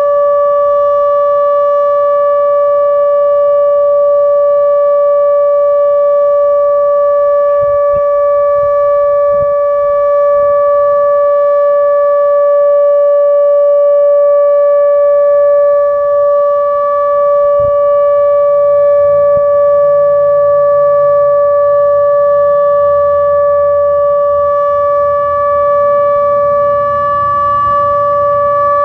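Outdoor tornado warning siren sounding a steady alert tone, holding one unchanging pitch with its overtones. A faint low rumble joins it for about the last ten seconds.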